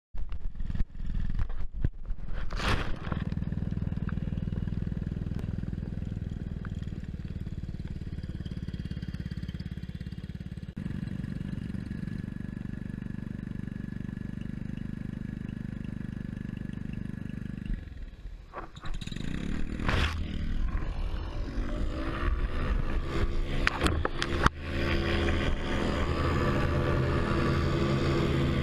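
Paramotor engine and propeller running steadily at low throttle, with a few knocks near the start. About 18 seconds in it revs up in a rising whine, and from about 25 seconds it runs louder at high throttle for the takeoff run.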